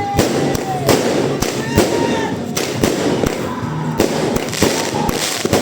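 Fire Fairy 36-shot consumer firework cake firing shot after shot, about two bangs a second, with crackling in between.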